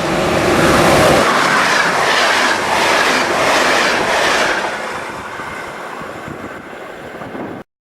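A train passing close by, its wheels clattering over rail joints about twice a second. It is loudest about a second in, then fades as it moves away, and the sound cuts off suddenly near the end.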